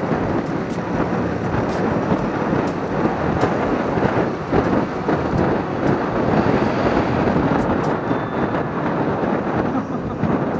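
Wind buffeting a motorcycle-mounted action camera's microphone while riding, a steady loud rush of wind and road noise with the motorcycle's engine mixed in, and scattered faint ticks.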